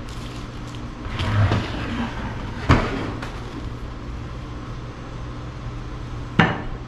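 Kitchen handling noises as a cabbage quarter and a metal box grater are moved about and set down on a wooden counter and a glass pie plate. There are two sharp knocks, one a little under three seconds in and one near the end, with soft rustling between and a steady low hum underneath.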